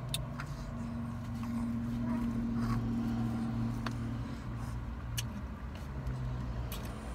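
Steady low hum in a car cabin, strongest in the first half, with a few small clicks as a woman eats from a foam takeout box.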